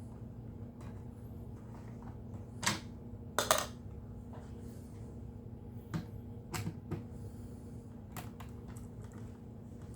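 Scattered sharp clicks and knocks of a screwdriver and the vacuum's hard plastic panels being handled as screws come out, the loudest pair about three and a half seconds in. A steady low hum sits underneath.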